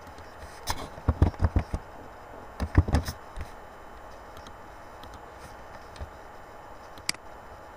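Computer keyboard keystrokes in two quick bursts in the first three seconds, as numbers are typed in, then a single sharp click near the end, over a steady low hiss.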